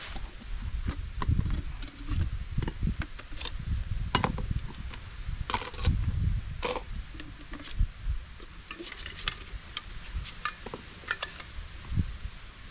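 Camp cooking gear being handled: scattered clicks, clinks and knocks, with irregular low bumps and rumbles underneath.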